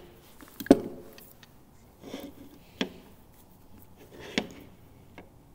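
Handling of a hand crimping tool and a cable lug on a wooden workbench: a few scattered sharp clicks and knocks, the loudest about a second in, as the lug is set into the crimper's die.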